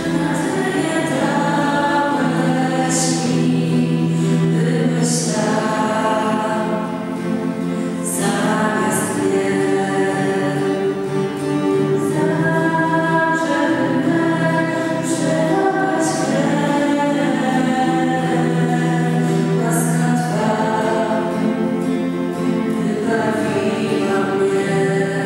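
A group of voices singing a slow hymn in long held phrases, over a steady low held note.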